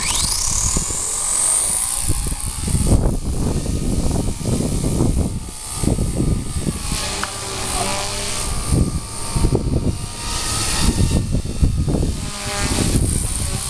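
Electric motor and rotor of a 4F200 RC helicopter spooling up with a quickly rising whine, then running in flight, with strong wind gusting and buffeting the microphone.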